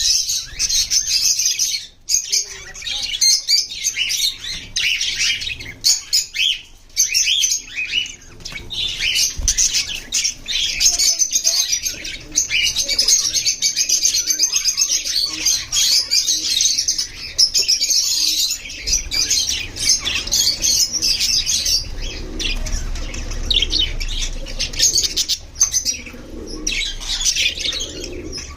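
A flock of budgies chirping and chattering without a break: quick, overlapping high warbles and tweets.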